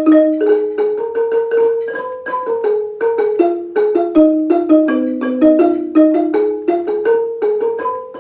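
Ranat ek, the Thai wooden-barred xylophone, playing a fast melody in quick, evenly spaced mallet strokes, about four or five a second.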